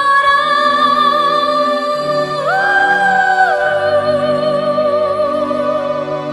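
Background music: a slow melody of long held notes with vibrato over sustained chords, stepping up about two and a half seconds in and back down about a second later.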